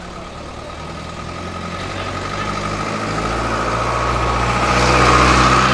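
A motor vehicle's engine running close by, growing steadily louder toward the end and then beginning to fade, as if passing.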